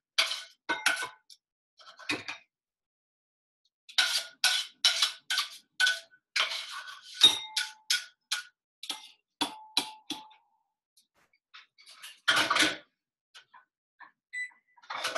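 A utensil knocking and scraping against a stainless steel sauté pan as cooked kale is emptied into a bowl: quick runs of clanks, two or three a second, with a ringing metallic note. It ends with a single louder clatter about twelve seconds in, as the pan is set back down on the stove.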